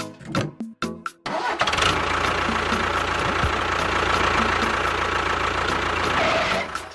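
An engine starts about a second in and runs steadily for about five seconds, then cuts off suddenly near the end. A few music notes are heard before it.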